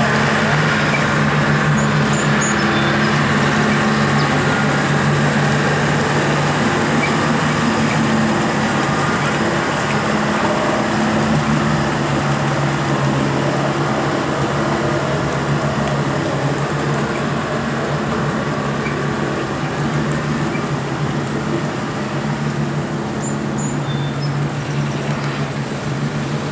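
Flatbed tow truck's engine running as the truck drives slowly through deep floodwater, a steady low hum over a wash of noise that fades slowly as the truck moves away.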